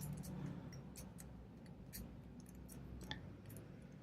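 Faint, irregular small clicks of a four-wheel combination padlock's number wheels being turned by hand.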